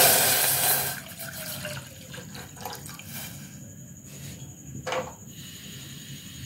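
Milk poured into a metal saucepan: a loud splashing gush for about the first second, then fading to faint trickles. A short knock about five seconds in.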